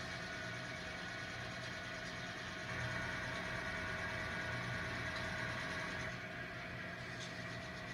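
Model diesel locomotive's onboard sound system playing a steady diesel engine running sound. It grows a little louder about three seconds in and eases back around six seconds.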